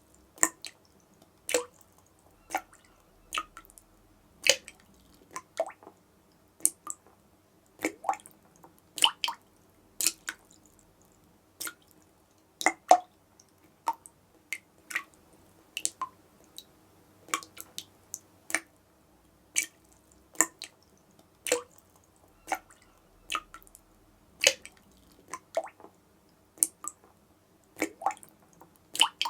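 Dripping tap: single water drops falling at an uneven pace, about one a second and sometimes two close together, each a short sharp plink.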